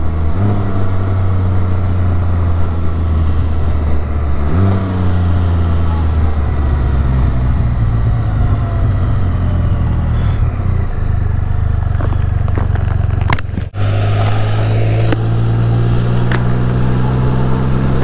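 Can-Am Spyder three-wheeler's engine heard from the rider's seat over wind and road noise, slowing down with two downshifts that each step the engine note up. Near three-quarters of the way through the sound briefly drops out at a gear change, then the engine pulls away again.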